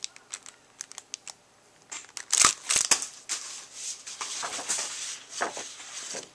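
Clear plastic packaging crinkling and paper rustling as packets of scrapbook supplies are handled, with a burst of sharp crackles about two and a half seconds in and a softer rustle after it.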